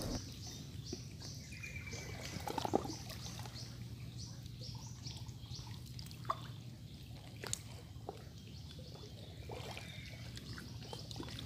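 Faint trickling and lapping of standing floodwater, with a few sharp clicks scattered through.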